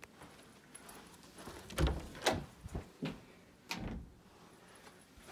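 A closet door being opened: a few sharp knocks and clatters, the loudest about two seconds in.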